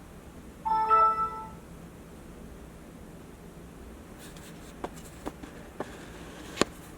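A short electronic chime-like tone about a second in, followed a few seconds later by four or five sharp, separate clicks.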